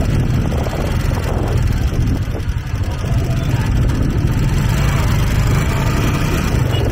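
Loud, steady low rumble of street and market background noise, with faint voices mixed in.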